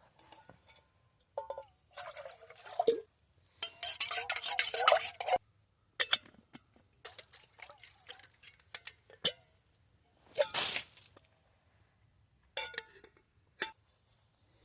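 Water being poured and sloshed in camp cookware in a few short bursts, with sharp clinks of the cookware near the end.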